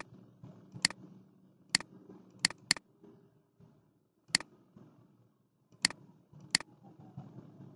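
Computer mouse clicking: about eight sharp single clicks spaced unevenly, with a quick double click about two and a half seconds in, over faint room noise.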